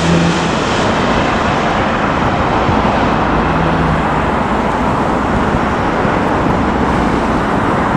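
Twin-engine jet airliner with landing gear down passing low overhead on final approach and moving away toward the runway: a steady, loud broad rush of jet engine noise, with a faint engine tone that fades in the first half second.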